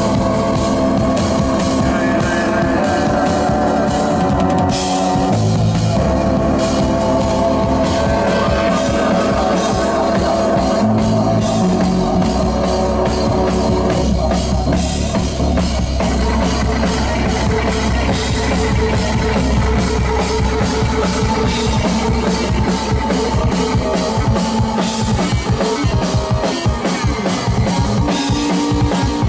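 Drum kit and synthesizer playing together: a dense, driving drum beat under held synth chords that change every few seconds.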